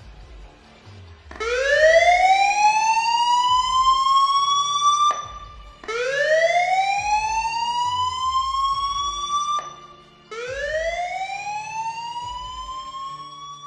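A siren rising slowly in pitch three times. Each rise lasts nearly four seconds and cuts off sharply at the top; the first begins about a second in. Low music plays underneath.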